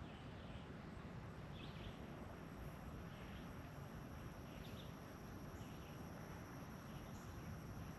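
Faint outdoor ambience of insects: a steady high-pitched trill runs throughout, with short chirps about once a second, over a low rumble.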